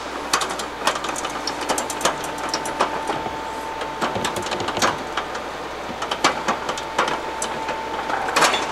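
Irregular light clicks and knocks as an industrial vacuum's motor deck is lowered and seated onto its collection drum, over a steady faint tone.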